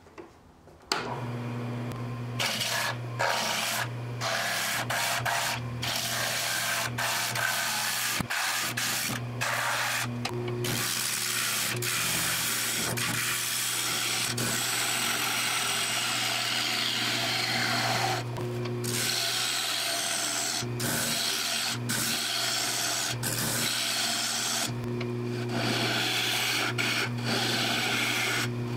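Wood lathe starting about a second in and then running with a steady motor hum, while a hand-held turning tool cuts the inside of a spinning natural-edge wooden bowl: a continuous rough scraping of the cut, broken by many short gaps as the tool lifts off the wood.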